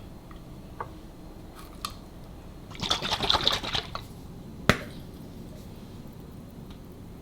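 Kitchen handling sounds: a burst of rapid rattling noise lasting about a second, then one sharp click about a second later.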